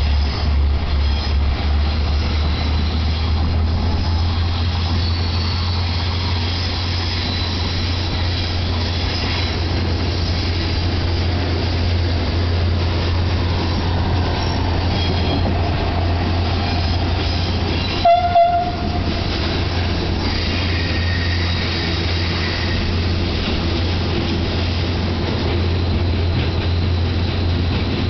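Diesel shunting locomotive moving a rake of coaches through station trackwork, with a steady low drone and faint wheel squeal. About eighteen seconds in comes a short double horn toot.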